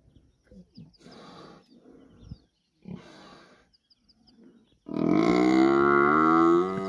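A few short, rough grunting breaths, then about five seconds in a downed bull Cape buffalo starts a loud, long, low bellow that runs on past the end: the distress bellow of a buffalo held down by lions.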